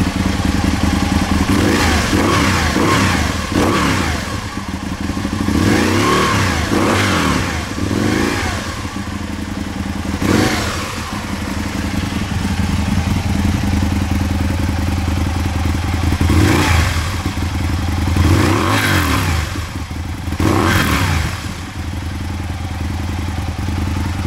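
2009 Aprilia Tuono 1000R's V-twin engine idling through Mivv carbon fiber exhaust cans with the baffles still in, revved in about ten short throttle blips, several close together in the first half and a few more spaced out later.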